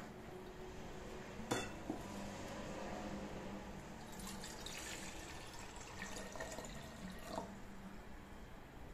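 Tea being poured into a glass for a few seconds, after a couple of light knocks of glass.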